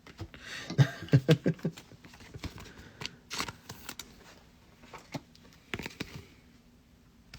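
Trading cards and pack wrappers being handled: irregular rustling, crinkling and light taps, sharpest about a second in and again around three seconds in.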